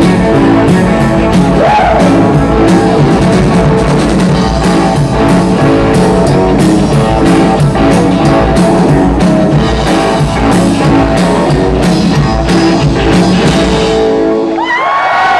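Live rock band playing loud, with electric guitars, bass and a drum kit keeping a steady beat. The music stops about fourteen and a half seconds in, and the crowd starts cheering and whistling.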